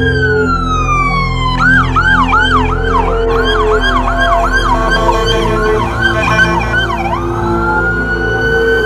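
Electronic emergency-vehicle siren: a falling wail, then a fast yelp cycling two to three times a second, then a slow rising wail near the end.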